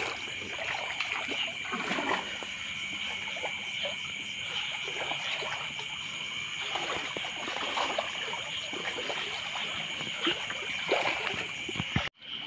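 Water splashing and sloshing in irregular bursts as someone wades along a shallow stream, over a steady high-pitched drone. The sound cuts out for a moment near the end.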